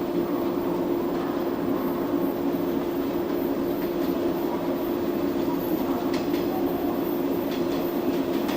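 Train sound: a steady humming drone over even rail noise, with a few faint clicks near the end.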